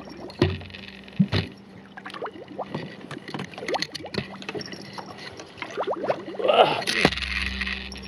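Water sloshing, gurgling and splashing against the hull of a small homemade remote-control fishing boat, with scattered clicks. The boat's steady motor hum stops about a second and a half in, and the splashing is loudest near the end.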